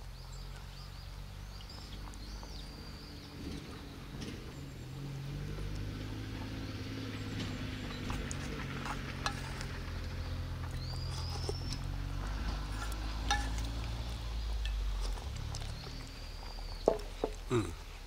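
Outdoor ambience: a low hum that slowly grows and then fades away about fifteen seconds in, a few short bird chirps, and scattered faint clicks.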